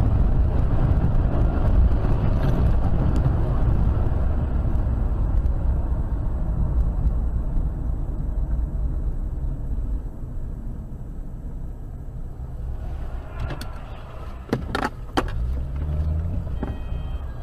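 Steady road and engine noise of a car driving along a highway, heard from inside the car, easing off after about ten seconds. A few sharp clicks come near the end.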